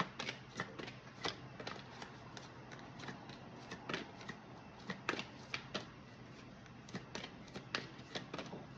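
Light, irregular clicks and taps of hands handling cards, a few a second.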